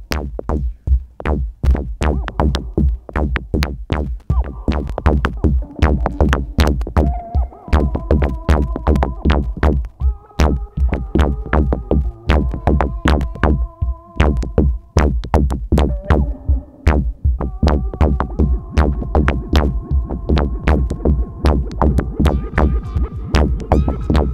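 Electronic music played live on a modular synthesizer and drum machine: a steady, fast drum-machine beat over a deep held bass, with synth tones that step between pitches every second or two.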